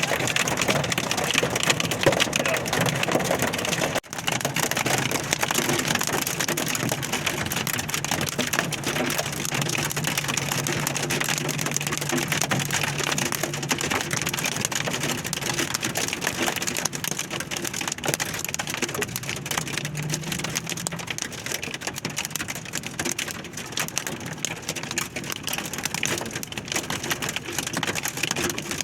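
Heavy thunderstorm downpour with hail: a dense, steady hiss of rain and hailstones pelting the ground and surfaces. It briefly drops out about four seconds in.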